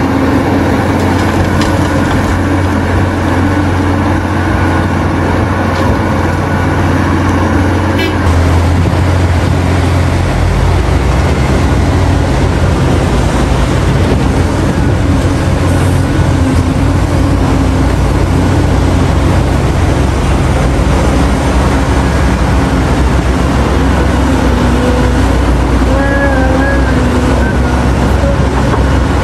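Caterpillar hydraulic mining excavator working steadily as it digs and loads dump trucks: a deep engine hum with a wavering hydraulic drone above it. The sound changes abruptly about eight seconds in.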